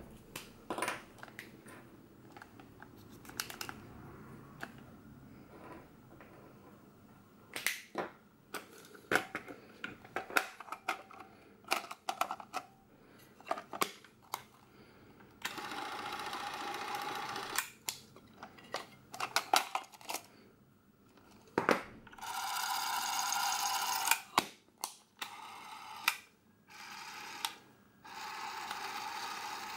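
Plastic and metal clicks and snaps as a Super 8 film cartridge is fitted into a Bell & Howell 8429 Autoload Super 8 camera and the camera is closed. Then the camera's battery-powered film-drive motor runs four times with a steady whir, each run lasting one to three seconds.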